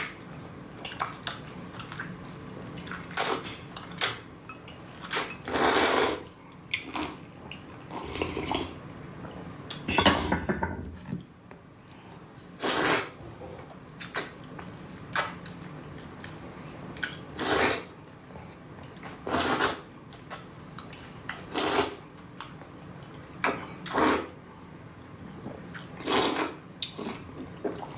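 Noodles being slurped into the mouth in repeated loud sucking slurps, one every second or two, with quieter mouth sounds between.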